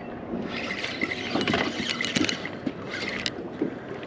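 Spinning reel being cranked in several short bursts, a whirring crank with small clicks, as a hooked Spanish mackerel is wound in to the boat.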